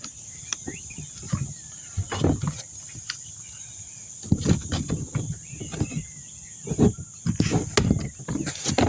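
Scattered clicks and knocks of small plastic and metal door-lock parts being handled, with dull low thumps in between.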